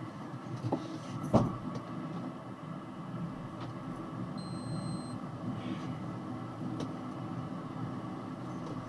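Steady engine and cab noise inside a box truck, with a sharp knock about a second and a half in and a short high beep near the middle.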